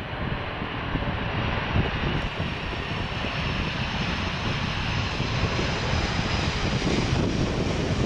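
Boeing 747-400 rolling out just after touchdown: a steady, dense jet roar with a deep rumble underneath. A hissing upper whine grows louder through the second half.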